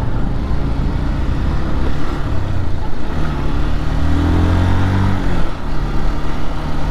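Motorcycle engine accelerating under the rider, its pitch rising for a couple of seconds, dropping sharply about five seconds in at a gear change, then running steadily. Wind and road noise run underneath.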